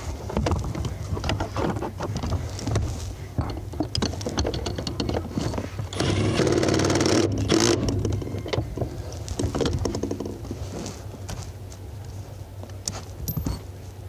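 Cordless power drill running for about a second and a half near the middle, turning a bolt on an accelerator pedal assembly's mounting bracket. Scattered clicks and clatter of tools and parts being handled are heard around it.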